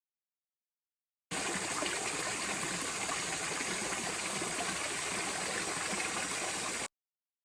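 Steady rushing of running water, like a stream, that starts abruptly about a second in and cuts off suddenly shortly before the end.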